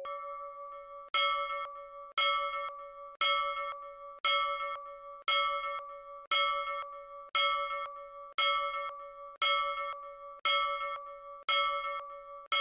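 Bell-like ding sound effect struck about once a second, each strike ringing with several clear pitches and fading before the next.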